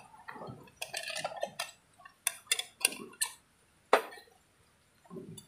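Metal military cup clinking and clanking as it is pulled from its canvas pouch and set down on a small camping stove: a soft rustle of the pouch, a quick run of clinks, then one sharp clank about four seconds in.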